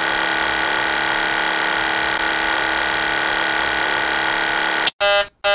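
Boeing 737 stall warning stick shaker rattling steadily and loudly: the airspeed is too low and the aircraft is near a stall. It cuts off abruptly near the end, followed by two short warning-horn beeps, the start of the takeoff configuration warning.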